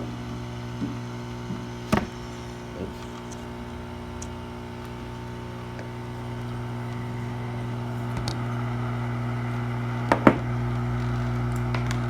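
Hot air rework station's blower running at maximum airflow, a steady hum with air hiss that grows louder about halfway through. A few sharp clicks, two close together near the end the loudest.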